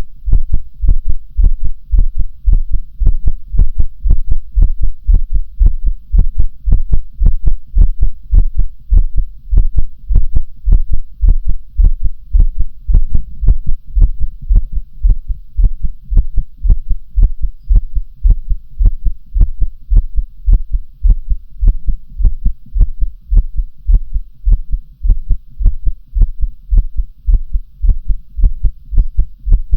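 A human heartbeat, loud and close-up, beating in a steady, even rhythm with deep low thuds.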